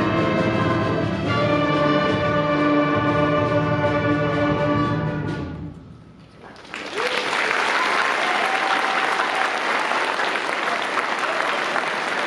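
A school concert band of brass, woodwinds and percussion holds its final chord, which cuts off about five and a half seconds in. The audience then breaks into steady applause.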